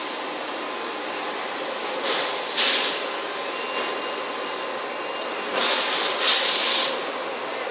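Steady machine noise from a quilt folding machine, broken twice by loud bursts of hiss, about two seconds in and again for about a second and a half near six seconds, like compressed air venting.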